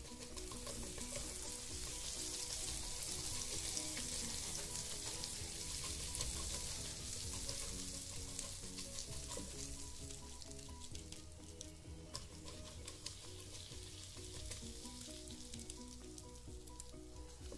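Sizzling on the hot plates of an open electric waffle maker as a silicone brush spreads a coating over them, loudest in the first half and easing off later. Light background music with short plucked notes plays underneath.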